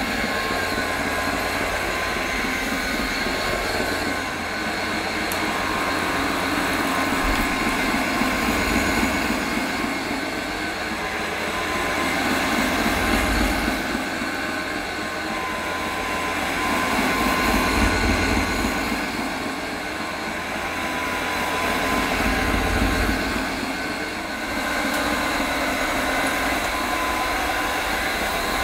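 AirCraft PowerGlide cordless hard floor cleaner running, its twin rotating microfibre scrubbing pads spinning against an Amtico floor. A steady motor hum with a thin whine over it, swelling and easing every few seconds.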